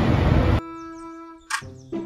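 Garbage truck engine and road traffic noise that cuts off abruptly about half a second in. A held musical note follows, then a short noisy burst about one and a half seconds in, and then children's background music begins.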